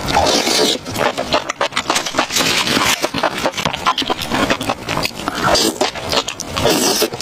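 Close-up mouth sounds of eating sauce-coated enoki mushrooms off a skewer: wet chewing, slurping and smacking, with many quick clicks and crackles running continuously.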